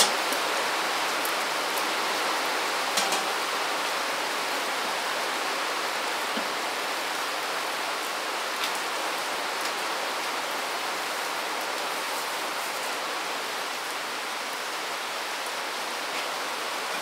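Steady hiss of falling water, with a few faint ticks and taps.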